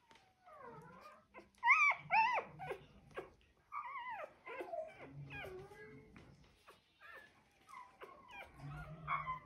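Four-day-old German Shorthaired Pointer puppy crying in a run of high, wavering squeals, the two loudest about two seconds in, as it is held for dewclaw removal.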